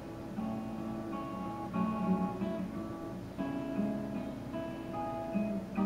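Background music: acoustic guitar playing, with plucked and strummed notes that change every half second or so.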